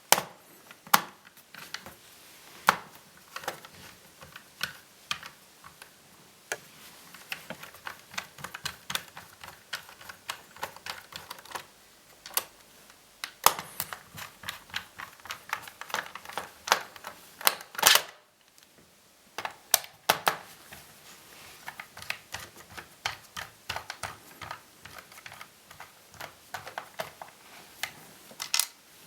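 Irregular small clicks and taps of a screwdriver and fingers working on a laptop's plastic case while its screws are removed, with a short pause a little past halfway.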